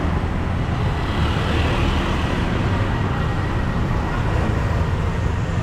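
Road traffic noise: a steady low rumble of passing vehicles, swelling slightly about a second and a half in.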